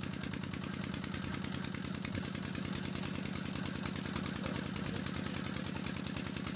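An engine running steadily at constant speed, an even, rapid throb with no change in pace.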